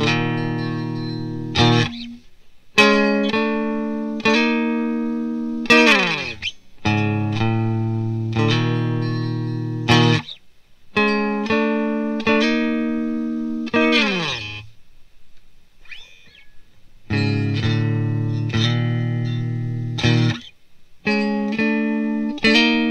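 Electric guitar (a Mexican-made Fender, Stratocaster-style) played through an amp: chords struck one at a time and left to ring for a second or three, several of them ending in a quick downward slide in pitch, with a short pause about two-thirds of the way through.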